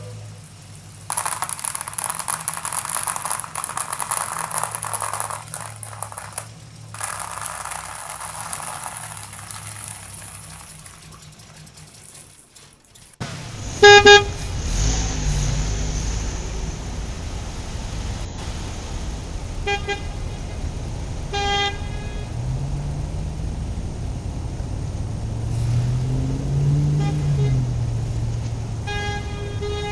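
Vehicle horn honking: a loud toot about a third of the way in, then short toots and a longer one near the end, over a low engine-like rumble that rises and falls in pitch. Before the horn, a steady hiss runs for several seconds and then cuts off abruptly.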